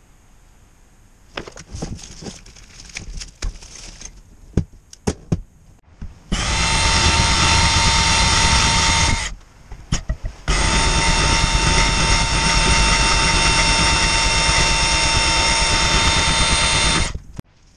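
Power drill running at a steady full speed in two long runs, about three seconds and then about seven seconds, with a short break between. Before it, scattered clicks and knocks of parts being handled.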